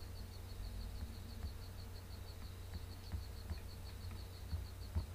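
Background room noise: a steady low hum with a faint high-pitched chirp repeating evenly several times a second, and a few faint clicks.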